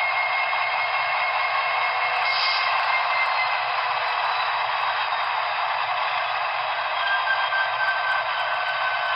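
Broadway Limited HO-scale SD70ACe model's DCC sound decoder playing its diesel locomotive engine sound through the model's small onboard speaker: a steady, thin engine sound with little bass.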